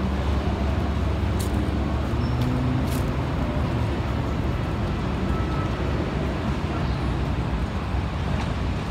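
Street traffic noise: a steady low rumble of road-vehicle engines, with a few faint clicks.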